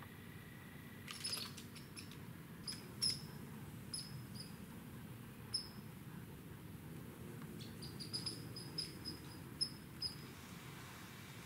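Short, high chirps from a small woodland creature, repeated in two loose series, one starting about a second in and another near the end, over faint outdoor background.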